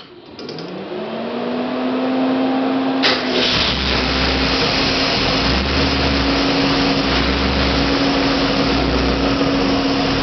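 A 393 Windsor stroker V8 with FAST fuel injection starting for the first time. At key-on a whine rises and then holds steady. About three seconds in, the engine catches and runs with a slow, regular throb as it settles in, its fuel-injection computer learning the engine.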